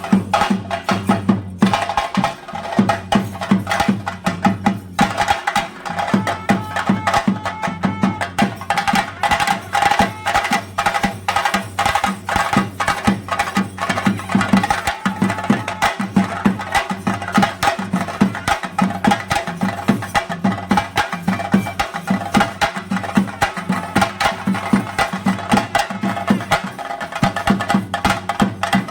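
Kerala temple percussion for a theyyam thottam: chenda drums beaten in a fast, unbroken rhythm of dense strikes.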